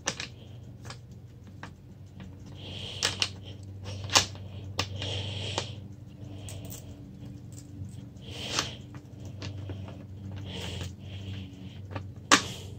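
Clicks, knocks and short scrapes of a bicycle saddle and its seat-post clamp being handled and fitted by hand, with a sharp click near the end. A steady low hum runs underneath.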